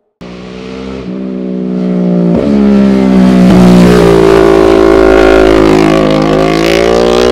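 Sport motorcycle engines revving hard as bikes accelerate along the road, louder over the first few seconds, with the pitch shifting in steps.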